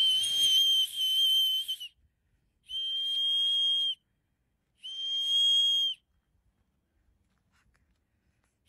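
A hand whistle blown in three long, steady, shrill blasts, the first about two seconds long and the next two shorter, to scare off bears.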